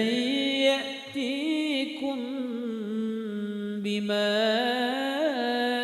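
Melodic Quran recitation: a single voice chanting in tajwid style, drawing out the words in long held notes that waver and turn up and down in pitch.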